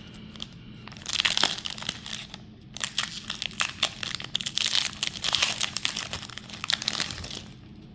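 Foil wrapper of a Pokémon card booster pack crinkling and tearing as it is opened, in two stretches with a brief pause between them.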